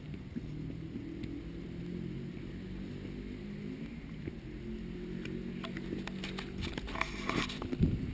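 A steady low hum, with scattered footsteps on stone steps and paving. Near the end comes a burst of knocks and rubbing as the camera is swung and handled.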